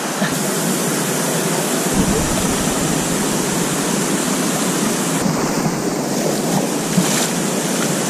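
Steady rush of river water flowing over rock, with a deeper rumble joining about two seconds in.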